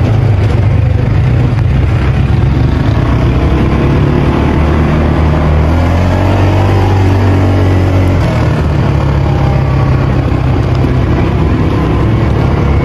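A small vehicle engine running steadily and loudly, its pitch shifting a couple of times as the throttle changes.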